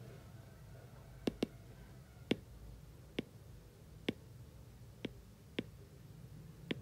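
About eight faint, sharp clicks at irregular intervals, two in quick succession about a second in, from a stylus tapping the glass of a tablet screen while marking up a slide.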